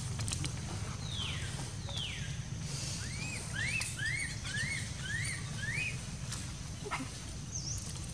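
Infant macaque crying: two high falling squeals, then a run of about six short rising-and-falling whimpers at roughly two a second, over a steady low background hum.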